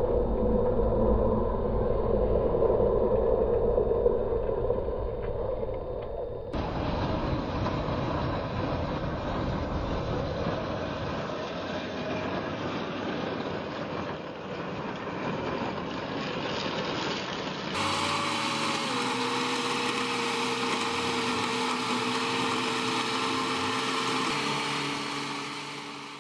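Tractor engines running steadily while they push a snow blade along a road, heard in three joined recordings. In the last one a steady whine sits over the engine, and the sound fades out at the end.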